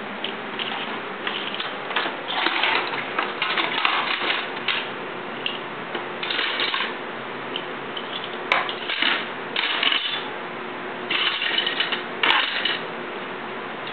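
Stainless steel forks and spoons clattering and clinking as they are dropped and shuffled into a plastic cutlery drawer organiser, in uneven bursts with short pauses, and a couple of sharper single clinks near the end.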